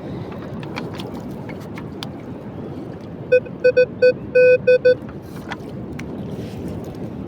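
Metal detector beeping, a quick run of about seven short tones over a second and a half, about three seconds in, over a steady background rush.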